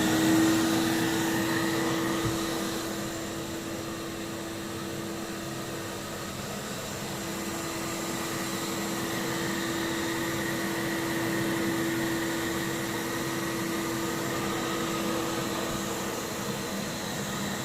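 Vacuum cleaner motor running steadily with a constant high hum, its pitch and level shifting slightly as the nozzle works over sofa upholstery.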